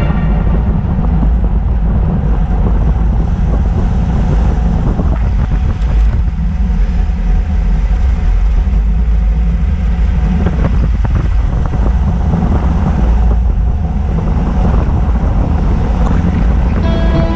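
Steady heavy wind noise buffeting an action camera's microphone on a road bike riding at about 30–36 km/h, with a few faint clicks.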